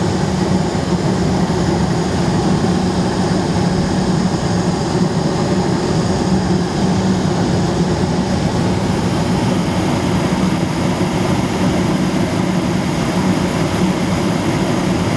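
Coleman high-efficiency gas furnace running: a steady drone and rush of air from its fan, with a hum that stays level throughout. The fan is noisy because it vibrates against its mounting, which the owner thinks rubber padding could stop.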